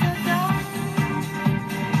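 Background music with a steady beat, about two to three beats a second, and a few gliding high notes.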